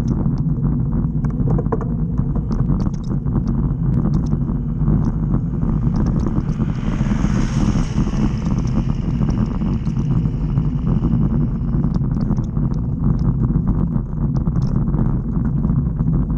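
Steady rumble and ticking rattle of a bicycle riding over rough, patched asphalt, heard through a camera mounted on the bike. A van overtakes about halfway through, its engine and tyre noise swelling for a few seconds and then fading.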